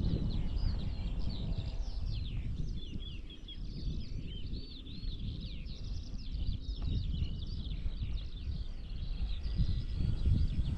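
Wind buffeting the microphone in a low, gusty rumble, with a busy chorus of songbirds above it: rapid high chirps and warbling notes, one after another.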